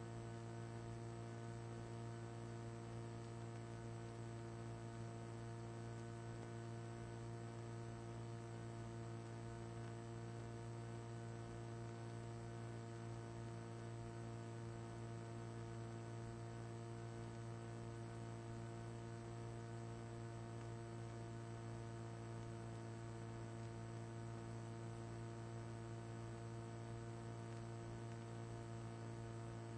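Steady electrical mains hum, one low tone with a stack of even overtones, unchanging throughout.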